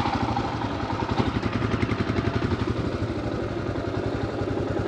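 Motorcycle engine running at idle or just off idle, with a steady, even beat.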